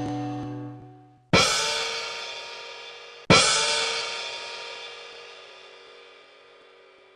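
Cymbal-like crash sound effect, struck twice about two seconds apart, each hit ringing on and slowly fading; an earlier crash is dying away in the first second.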